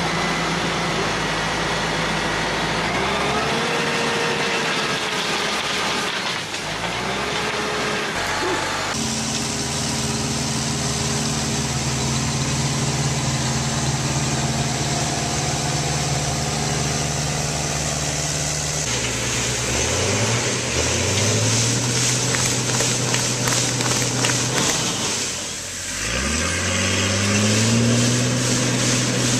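Tractor engines running, heard in several clips joined by abrupt cuts. The engines rev up with a rising pitch about twenty seconds in and again about twenty-six seconds in.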